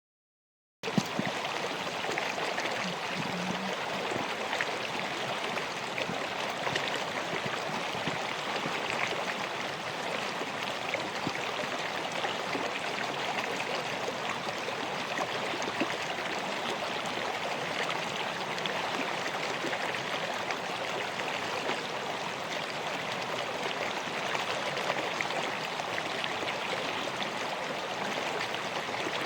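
River water flowing in a steady, continuous rush, starting suddenly just under a second in.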